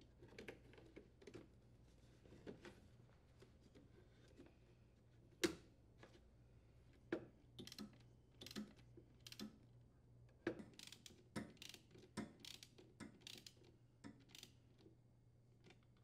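Faint, irregular clicks and taps of a quarter-inch nut driver and socket ratchet driving the mounting screws of a new refrigerator condenser fan motor into its plastic bracket. The clicks come more often in the second half.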